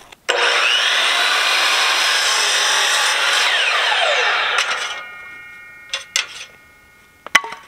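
Electric sliding compound miter saw running and cutting through a wooden board for about four seconds, then the motor winding down with a falling pitch. Fainter ringing and a few knocks follow, with a sharp knock near the end.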